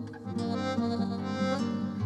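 Instrumental Turkish folk music from accordion, acoustic guitar and oud: the accordion holds sustained melody notes over plucked strings, with a brief drop in loudness just after the start.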